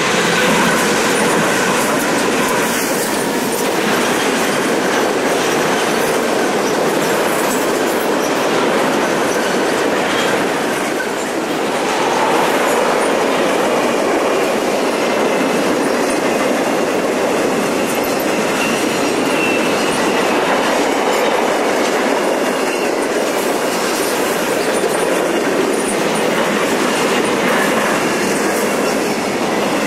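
Conrail diesel freight train passing close by. The locomotives go by at the start, then a long string of boxcars and covered hoppers follows. Throughout there is a steady, loud rush of steel wheels clattering over the rails.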